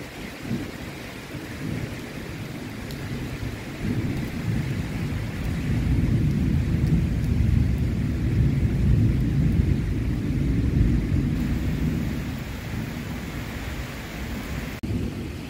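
Rain falling steadily, with a long low roll of thunder that swells about four seconds in, holds for several seconds and fades away near the end.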